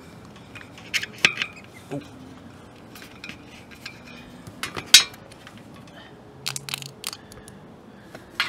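A plastic Slime tire-sealant bottle and its fill hose being handled at a bicycle wheel while the hose is fitted to the valve stem: a scatter of irregular light clicks and knocks, the sharpest about five seconds in.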